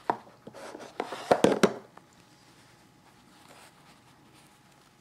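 Hands handling balls of air-dry clay on a paper towel: a few sharp clicks and a short rustle in the first two seconds, then quiet.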